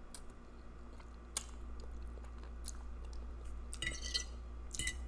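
Close-up chewing of a mouthful of spaghetti with meat sauce, with faint wet mouth clicks. About four seconds in, a metal fork scrapes and clinks on the ceramic plate, twice, as more noodles are gathered.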